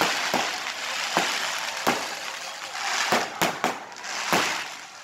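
Aerial fireworks going off: about eight sharp bangs of bursting shells at irregular intervals, over a steady hiss.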